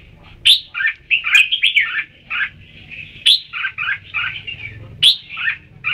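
Red-whiskered bulbul singing: a quick, continuous run of short chirpy phrases, broken every second or two by a sharp high note.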